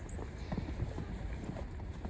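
Fresh snow crunching in many small irregular crackles, with a steady low wind rumble on the microphone.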